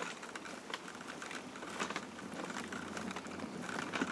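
Graco Click Connect stroller rolling along a bumpy path: its wheels and frame rattle with many small, irregular clicks.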